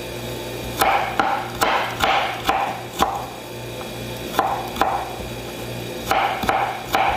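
Kitchen knife slicing a red onion on a wooden cutting board: the blade crunches through the onion and knocks the board in three runs of strokes about half a second apart, six, then two, then three, with short pauses between.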